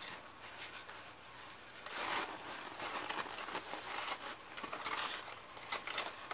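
Blue paper towel and green tissue paper rustling and crinkling as hands unwrap a gift, in uneven bursts of crackle.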